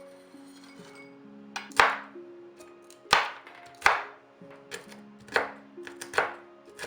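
A knife chopping on a cutting board: several sharp knocks at uneven intervals, over soft background music.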